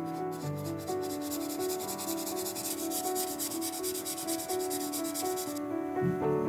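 Fine pink P1500 sandpaper rubbed by hand back and forth against the edge of a small 1/43 model car part: a quick, scratchy sanding that stops about five and a half seconds in. Soft background music runs underneath.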